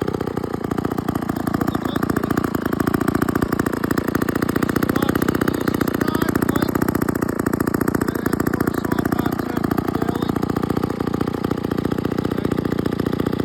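A 1948 McCulloch two-man chainsaw's two-stroke engine running steadily, with a rapid, even firing beat.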